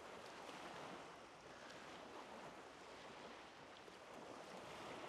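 Small waves lapping against a flat rocky shoreline, a faint, steady wash of water.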